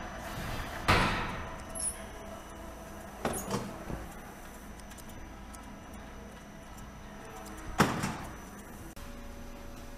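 Workshop handling noise: a few sharp knocks and clatters, the loudest near the end, over a steady machine hum.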